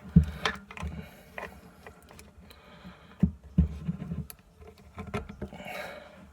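Small metal parts of a car door check clicking, knocking and scraping as they are handled and fitted back together, with a few louder knocks among them.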